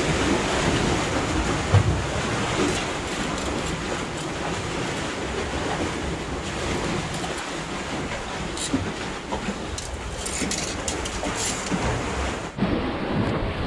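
Steady rushing and surging of water churning between concrete breakwater blocks, with a few short clicks in the middle.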